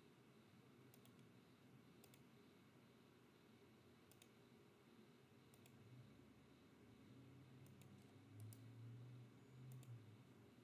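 Near silence with faint computer mouse clicks, one every second or so, as points are placed one by one; a faint low hum joins in near the end.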